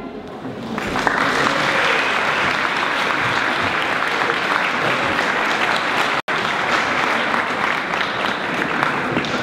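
Audience applause that starts about a second in, just as the tango music ends, and then keeps up steadily, with a split-second dropout a little past the middle.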